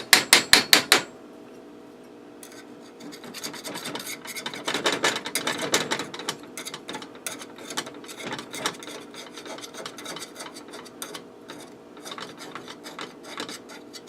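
A quick run of sharp taps on a metal bundt cake pan in the first second, then irregular scraping and rubbing against the pan as the cake is worked loose to turn it out.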